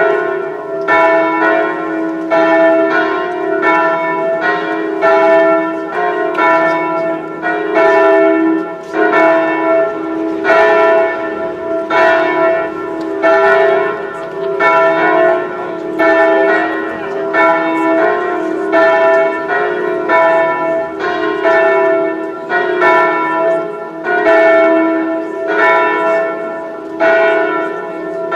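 Church bells of the basilica ringing for a funeral, struck over and over at an even pace, each stroke's ringing running into the next.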